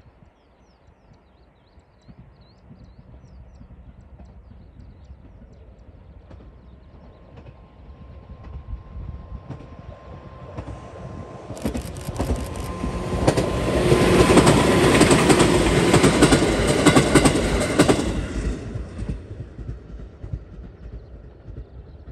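JR 211 series 3000-subseries four-car electric multiple unit passing: its rumble builds slowly as it approaches, peaks over about five seconds as the cars go by with the wheels clattering on the rails, then fades as it recedes. A faint steady whine is heard during the approach.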